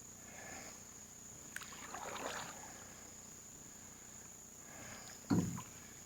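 Canoe being paddled: a soft paddle stroke swishing through the water about two seconds in, and a single low knock on the canoe about five seconds in, over a steady high-pitched hum.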